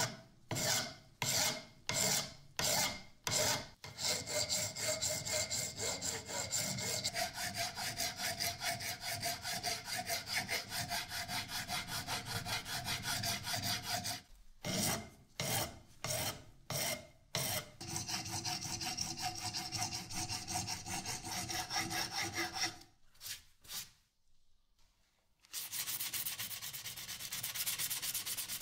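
Flat hand file rasping across a brass pin set in a beech-wood handle, filing the pin flush with the wood: a few separate strokes, then long runs of quick strokes broken by short pauses. After a brief quiet spell near the end, a finer, steadier scraping starts.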